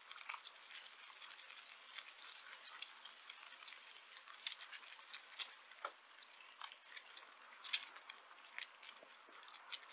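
Bicycle rolling over a rough, broken pathway: a run of irregular sharp clicks and rattles as the tyres and frame jolt over the bad surface.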